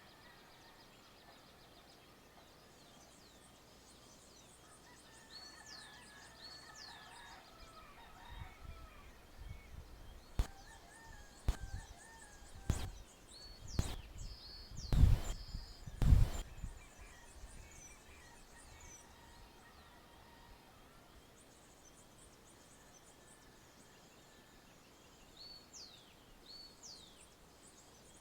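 Countryside dawn ambience: birds calling with short high chirps, and a run of loud, sharp thumps or knocks in the middle.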